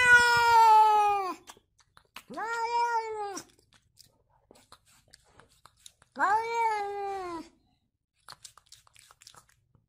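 Domestic cat meowing three times, each a drawn-out call of about a second that rises at the start and then slowly falls in pitch. A few faint clicks follow near the end.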